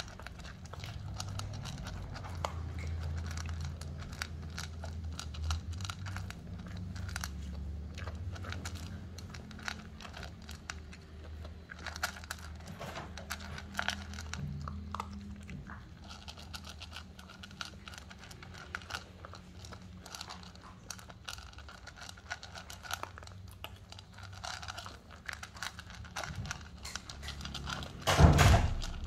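A poodle crunching dry kibble from a bowl: a steady run of small, irregular crisp crunches. Near the end there is one brief, much louder knock.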